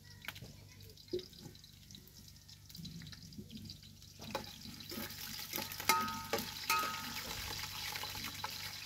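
Chopped onions frying in a sufuria, sizzling, the sizzle getting louder about four seconds in. A couple of sharp metallic clinks with a short ring come about six and seven seconds in.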